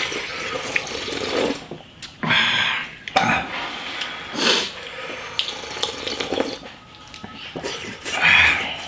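People slurping hot broth from bowls in several loud slurps, with quieter eating noises between them.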